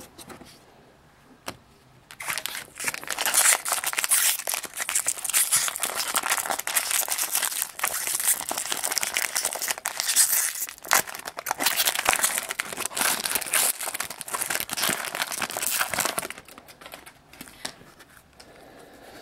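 Foil wrapper of a Topps baseball card jumbo pack being torn open and crinkled by hand. The crackling starts about two seconds in and dies down a few seconds before the end.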